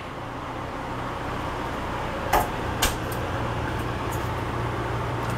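Steady low hum inside a stationary E653 series train car, with two short sharp clicks about half a second apart midway.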